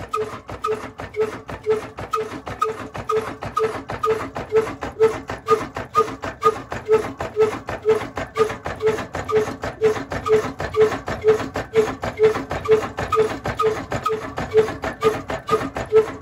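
Old Ruston single-cylinder horizontal oil engine running steadily, each firing stroke a regular beat about twice a second with a fast mechanical clatter between.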